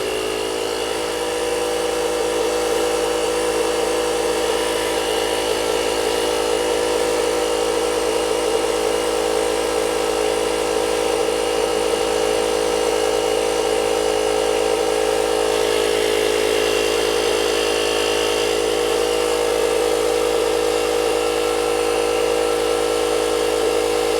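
EXIT battery-powered portable air compressor running steadily under load as it inflates a car tyre from 29 to 35 PSI, a loud, even motor drone.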